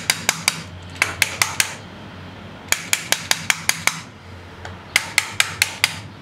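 Quick runs of light metallic taps from a hand tool striking the South Bend Heavy 10's cast-iron spindle bearing cap, about five taps a second in four short bursts, to work the cap loose off its locating pins.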